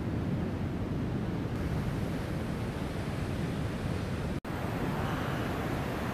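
Steady rush of ocean surf mixed with wind buffeting the phone's microphone, a low rumbling noise that cuts out for an instant a little over four seconds in.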